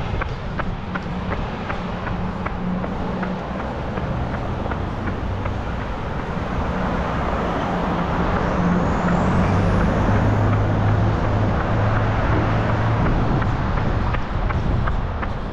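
Running footsteps in a steady rhythm, with a motor vehicle passing close by. Its engine and tyre noise swell to their loudest about two-thirds of the way through, then ease off near the end.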